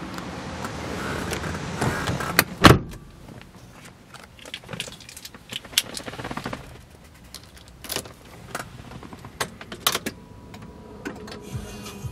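Handling sounds inside a car cabin: a car key and keyring jangling, with scattered light clicks and one loud sharp knock about two and a half seconds in. A low steady hum is heard until about the time of the knock, then drops away.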